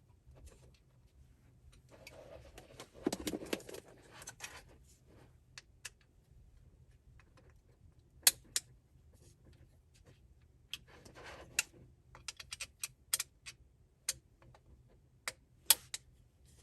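Small metal wrench clicking and scraping against the corner bolts of an electric spinning wheel's frame as they are loosened, with scattered sharp clicks and two short stretches of scraping.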